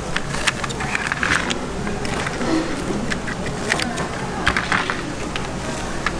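Metal scissors cutting through a cheese-filled coin-shaped bread, with scattered sharp clicks of the scissors and a metal spatula against a wire rack. Steady busy market background noise runs underneath.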